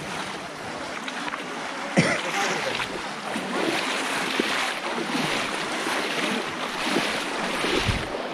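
Shallow muddy water sloshing and splashing as many people wade through it and plunge bamboo basket fish traps. There is a sudden sharp sound about two seconds in.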